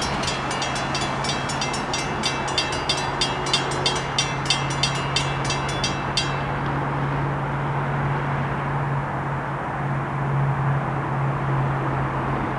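Freight train's diesel locomotives running with a steady low drone as the train approaches. Over it a bell rings rapidly, about three strokes a second, and stops about six seconds in.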